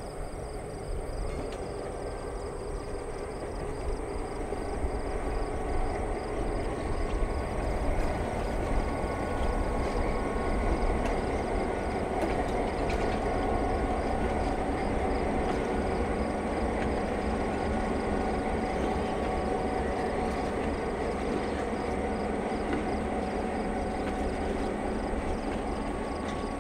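EMD GP9 and GP18 diesel-electric locomotives, each a 16-cylinder 567 engine, running under load as they pull a freight train past. The rumble builds over the first several seconds, is loudest as the locomotives go by, then holds steady as the cars follow.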